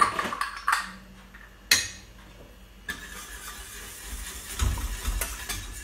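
Metal kitchen utensil clinking against a plate and saucepan, three sharp clicks in the first two seconds, followed by a low steady rumble with hiss.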